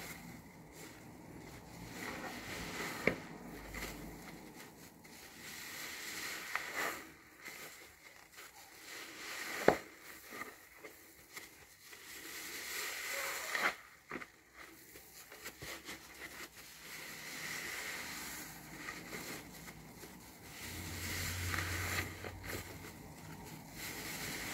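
New foam car-wash sponges being squeezed and kneaded by hand in thick soap lather: wet squelching and the fizzing crackle of popping suds, coming in slow swells. A few sharp wet snaps stand out, the loudest about ten seconds in.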